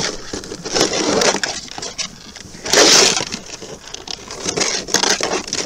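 Rustling and scraping handling noise with scattered clicks and knocks on a plastic kayak deck. A louder rush of noise comes about three seconds in.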